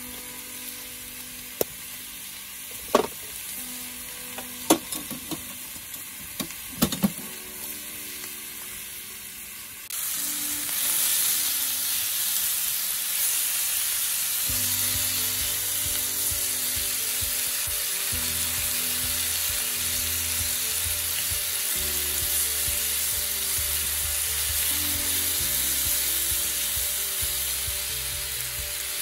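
Beef tendon sizzling in an iron frying pan over a wood fire, with a few sharp cracks in the first seconds. About ten seconds in the sizzling becomes much louder and stays that way.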